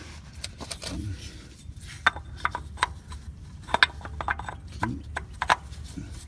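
Irregular sharp clicks and knocks of hard parts and tools being handled, during work on a Prius oil filter housing, with a steady low hum underneath.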